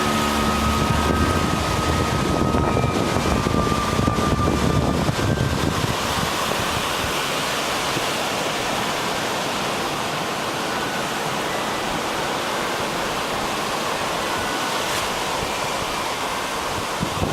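Sea surf washing steadily, with wind. A low rumble and a few faint steady tones fade out about six seconds in.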